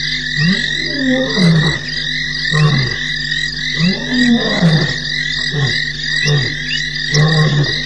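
Male lion roaring: a series of short, deep calls, each rising and falling in pitch, about one a second. A steady high-pitched night chorus runs behind it.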